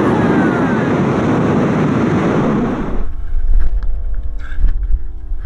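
Loud, steady rushing of air buffeting the microphone in a skydiving freefall, cutting off abruptly about three seconds in. A deep rumble with scattered knocks and clicks follows.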